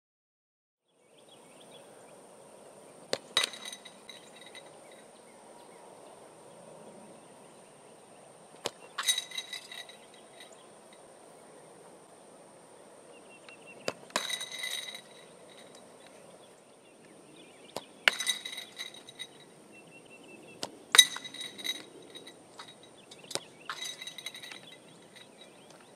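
A soccer ball kicked at a goal about six times: each kick is a sharp thud, followed a fraction of a second later by the ball striking the goal with a ringing metallic clink.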